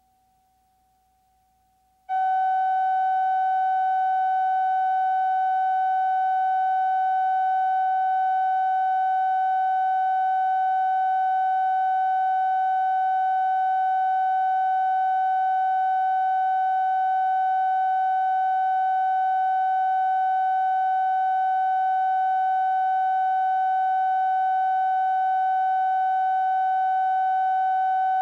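Steady electronic test tone at one unchanging pitch with faint overtones: the line-up reference tone recorded with colour bars on a videotape. It starts abruptly about two seconds in, after near silence.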